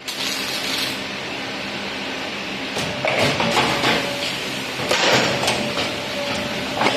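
Automatic steel wire bending and welding machine running: a steady mechanical clatter broken by sharp clacks about three seconds in, near five seconds and near the end, with a faint whine in the middle.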